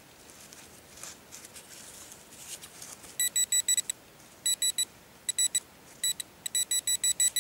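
Garrett Pro-Pointer pinpointer beeping in rapid pulses as it is pushed into a plug of soil, signalling a metal target. The probe first scrapes faintly through the soil. About three seconds in, the beeping starts in short bursts and becomes a continuous fast pulse near the end.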